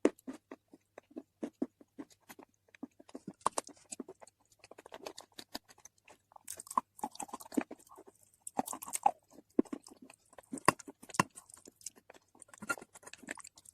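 Close-miked biting and chewing of unroasted nakumat edible earth: many crisp crunches at an irregular pace, with mouth sounds of chewing between them.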